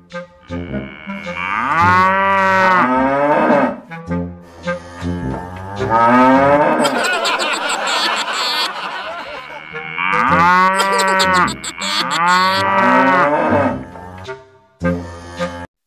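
Cattle mooing: long calls that rise and fall in pitch, two close together near the start and two more a little past the middle, with a busier stretch of mixed noise between them.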